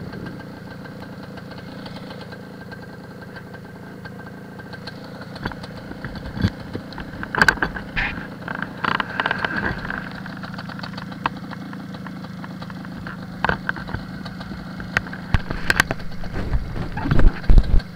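MZ ETZ 301's single-cylinder two-stroke engine running steadily at low revs as the motorcycle rolls slowly along a rough track. Scattered knocks and rattles come in from about six seconds in, with a few louder thumps near the end.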